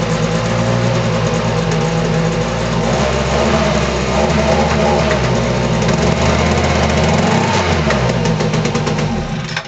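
Homelite two-stroke leaf blower engine running steadily; its pitch shifts about three seconds in, and it cuts off suddenly near the end.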